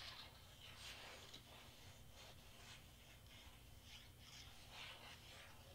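Near silence with faint, brief rustles and scrapes of cardstock pieces being handled and pressed into place, about half a dozen scattered through.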